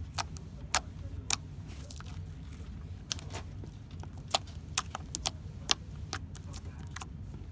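Homemade slime squeezed and pulled by hand, giving about a dozen sharp, irregular clicks and pops over a steady low hum.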